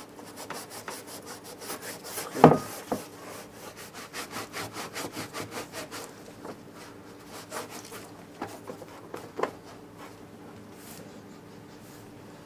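Rhythmic hand scrubbing of a dirty moped part, about five quick strokes a second, which stops about halfway through. A single loud knock comes a couple of seconds in, and two lighter knocks come later.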